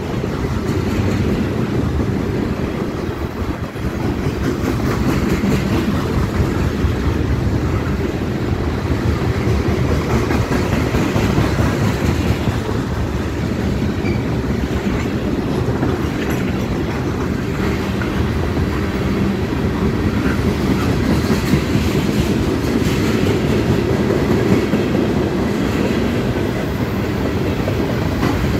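Freight train of tank cars rolling past: a steady rumble of steel wheels on the rails.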